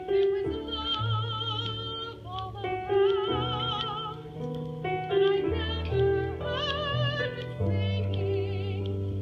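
Music: a high operatic voice, likely female, singing held notes with strong vibrato over sustained low accompanying notes.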